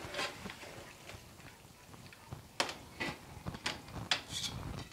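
Metal kitchen utensils clicking and scraping against a cooking pot and foil-wrapped stuffed bell peppers as they are moved about. It is quiet at first, then from about halfway comes a run of sharp clicks and taps, roughly six.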